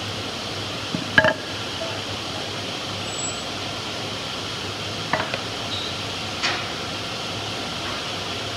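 Light knocks of pine boards being handled and set against the workbench, the loudest a double knock about a second in and a few more around five to six and a half seconds in, over a steady room hiss.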